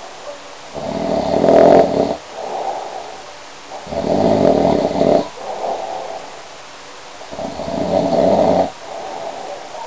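Snoring: three long snores, about three and a half seconds apart, with quieter stretches between them.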